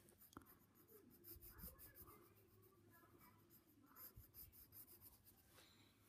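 Faint scratching of a pencil drawing short strokes on sketchbook paper.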